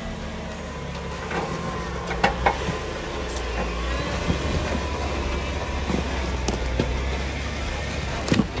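Off-road vehicle's engine running low and steady as it crawls over rocks, with scattered sharp knocks and crunches, the loudest about two seconds in and near the end.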